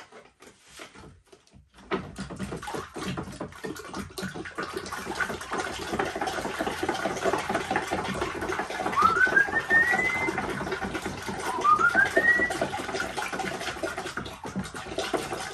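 Wet rag rubbed in quick, continuous strokes, smearing lime whitewash onto the stove. The rubbing starts about two seconds in, and two short rising squeaks come partway through.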